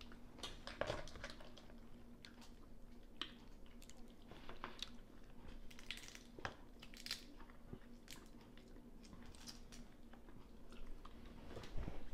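Eating sounds of steamed blue crab: soft chewing with scattered small cracks and crunches, faint and irregular.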